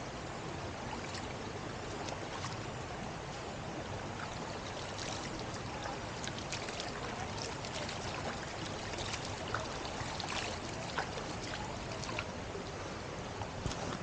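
Shallow mountain stream running over rocks, a steady rush of water, with a few faint, short splashes and clicks in the middle as hands dip into the water.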